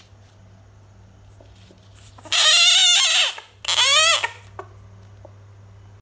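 Bullfrog giving two loud, high-pitched cries, each rising and then falling in pitch: a first of about a second, then a shorter one. This is the distress call of a frog being held in the hand.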